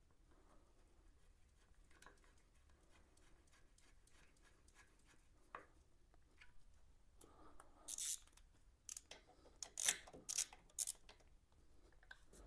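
A motorcycle's front radiator grill is being fastened by hand with a small hex key. Several short scraping clicks and rattles come about eight to eleven seconds in, after a few quiet seconds.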